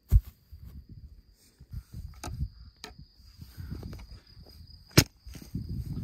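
A stone dropped onto the ground with a loud thud just after the start, then footsteps and rustling in grass as stones and dry branches are handled, with a few lighter clicks and a second sharp knock about five seconds in. A steady high insect trill runs underneath.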